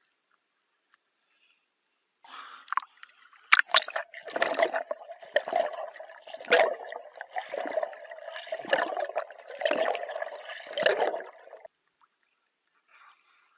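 Sea water sloshing and gurgling around a swimmer's handheld action camera as it dips under the surface. The muffled splashes start about two seconds in, come roughly once a second with the swimming strokes, and stop shortly before the end.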